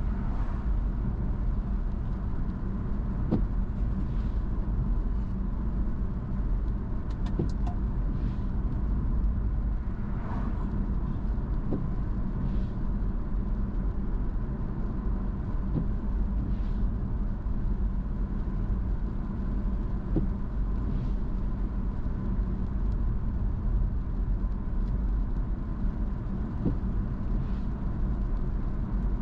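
Car driving at a steady pace: the even low rumble of engine and tyre road noise, with a faint steady whine and a few light ticks.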